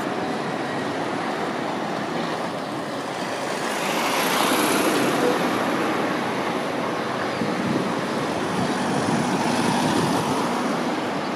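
Street traffic with a tram, cars and a coach going by, a steady rumble that swells twice as vehicles pass close.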